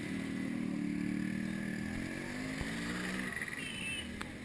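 Small motorcycle engine running, its note wavering a little and fading out about three seconds in.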